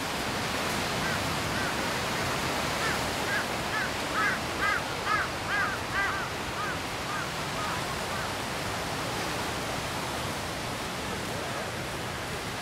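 Steady wash of surf on a beach. Over it, a run of short, high calls, each rising and falling, swells and fades between about one and seven seconds in.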